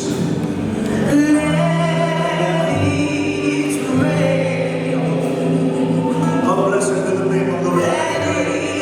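Gospel choir singing with musical accompaniment, long held notes over a sustained low bass tone.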